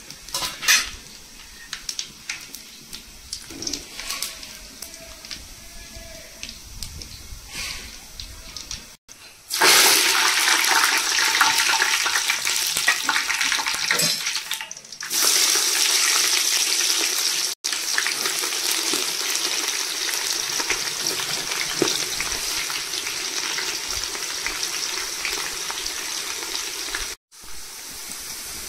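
Whole spices crackling and popping in hot oil. About ten seconds in, a loud, steady sizzle starts as curry leaves and then sliced onions fry in the oil, with a couple of brief breaks.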